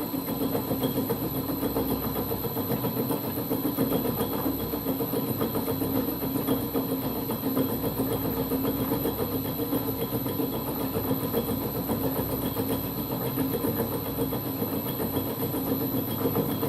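Holbrook C8 toolroom lathe running steadily under power, its gear train giving an even mechanical hum.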